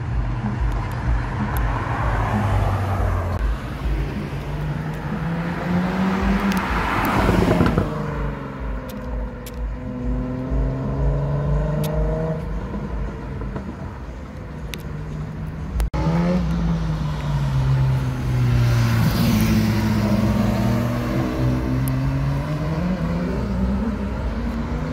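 Supercar engine accelerating hard past, its note rising to a loud peak about seven seconds in and then falling away. After a sudden cut about sixteen seconds in, a sports car engine is heard revving, its pitch swinging up and down through the gears.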